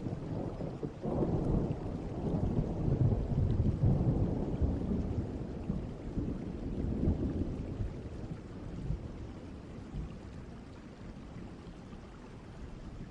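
Distant thunder rumbling over a steady rain ambience. The rumble swells about a second in, rolls for several seconds, and dies away in the second half.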